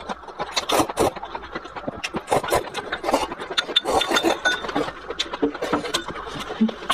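A person slurping cold vermicelli noodles and shredded cucumber, a run of quick, irregular sucking slurps, then slurping liquid from the bowl.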